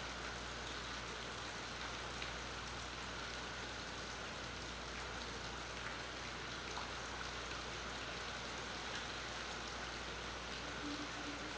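Steady rain falling on a marina, an even hiss with scattered drops ticking. A faint steady tone comes in near the end.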